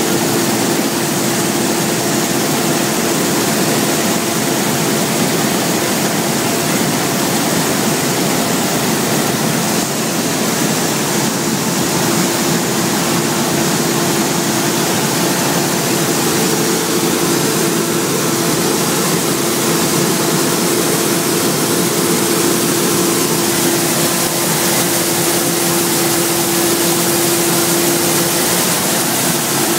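Claas Lexion 600 combine harvester running steadily while harvesting wheat: a constant drone with a steady whine through it.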